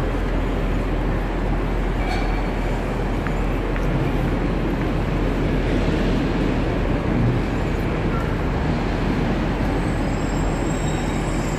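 Steady railway-station background noise: an even low rumble from trains and the station, with no single sound standing out.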